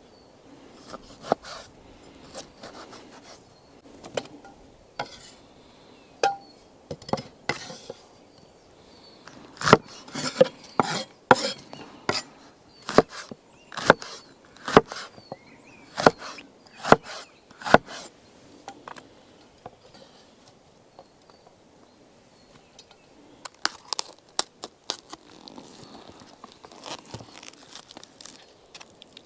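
Firewood being chopped: sharp blade blows into wood, a steady run of about one blow a second in the middle, with scattered lighter knocks of wood being handled before and after.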